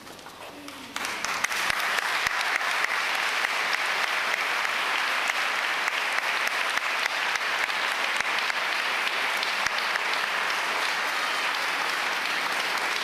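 Congregation applauding: the clapping breaks out about a second in and then carries on steadily.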